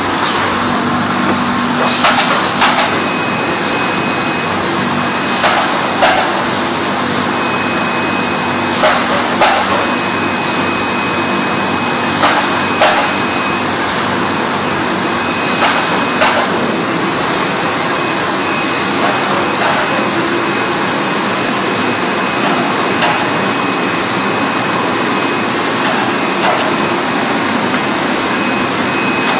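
Chocolate depositor line with biscuit feeder and press running: a steady machine whir, with sharp knocks in pairs about every three seconds that grow fainter after the first half, and a thin high whine that comes and goes.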